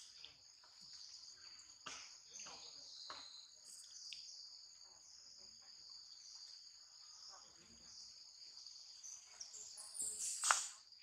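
Insects chirring in a steady high drone, with a few faint clicks. Near the end, a brief, louder noise.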